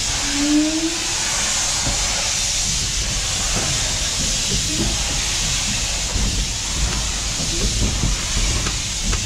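Steam locomotive giving off a steady hiss of steam over a low rumble as it moves slowly.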